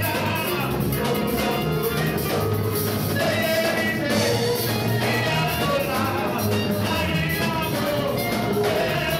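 Upbeat music with singing over a moving bass line and a steady beat.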